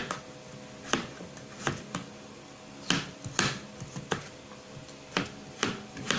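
A knife cutting through a chayote and knocking on a cutting board, about ten irregular strokes over six seconds, with a faint steady hum behind.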